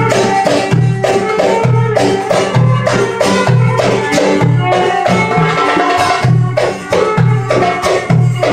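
Live Middle Eastern belly-dance music: hand drums beat a steady dance rhythm of deep strokes and sharp high slaps, a frame drum's jingles rattle, and a plucked string instrument plays the melody.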